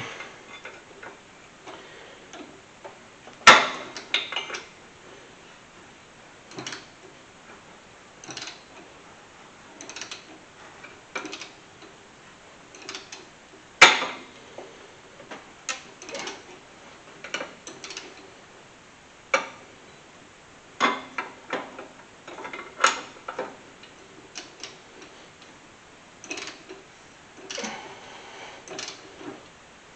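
Ratchet wrench on the crankshaft pulley bolt clicking in uneven bursts as it is swung back and forth to turn the engine by hand and walk the stretch-fit AC compressor belt off. Two sharper clacks, one a few seconds in and one about halfway through.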